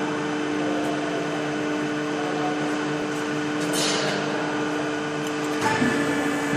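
CNC pipe bending machine running after start-up: a steady motor hum, a brief hiss about four seconds in, and a few clicks with a small shift in the hum near the end.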